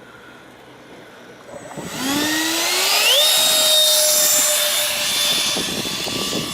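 Electric ducted fan of an RC jet spooling up: a whine that starts about two seconds in, rises in pitch for about a second and a half, then holds a steady high pitch.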